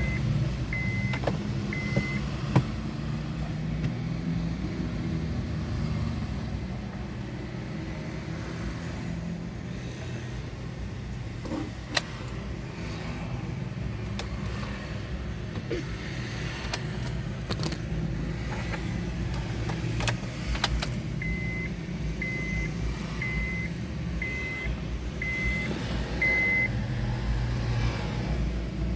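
Car engine running steadily at idle. Short high electronic beeps come about once a second, a few near the start and six more later on, with an occasional sharp click.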